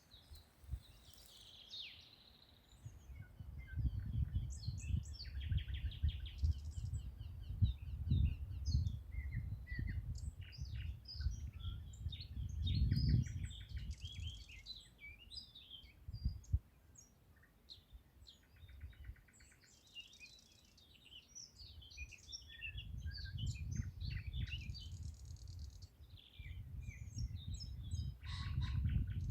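Several wild songbirds singing and calling together, short chirps overlapping with a few rapid trills. A low rumble swells in under them for several seconds at a time and is the loudest part of the sound.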